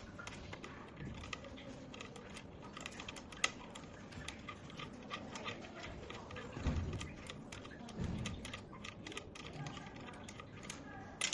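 Irregular small clicks and clinks of tools and metal parts being handled, with two dull thumps about seven and eight seconds in.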